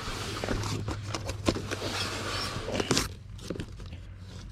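Comic books being pulled from stock and handled: paper rustling and sliding with short light knocks, busiest in the first three seconds and quieter after, over a low steady hum.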